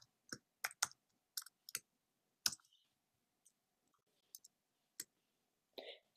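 Faint, irregular clicks of a computer keyboard as code is typed: about a dozen separate keystrokes, with a pause of nearly two seconds in the middle.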